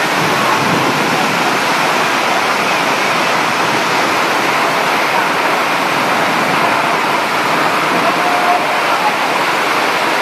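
Loud, steady rush of water from a torrential downpour and flooding.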